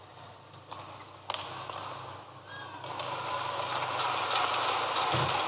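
Badminton rally: the shuttlecock is struck by rackets in sharp pops, starting with the serve. Arena crowd noise swells from about halfway in.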